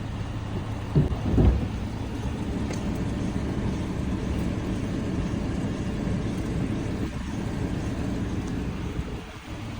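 A car running steadily with a low, even rumble, and two brief thumps about a second in.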